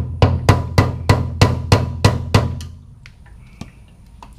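Hammer blows on the fuel pump's lock ring on the steel gas tank of a 1986 Mustang, eight quick, evenly spaced strikes at about three a second, stopping about two and a half seconds in.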